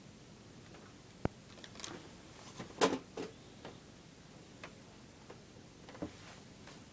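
Handling noise from a hand-held recording device: a few irregular clicks and soft knocks, the loudest a short cluster about three seconds in.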